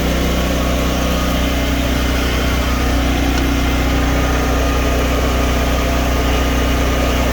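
Portable generator engine running steadily on propane with no electrical load, its output breaker still switched off.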